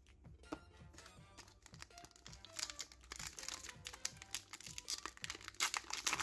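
Foil Pokémon booster pack wrapper crinkling as it is handled, the crackling growing louder about halfway through, over quiet background music with a steady beat.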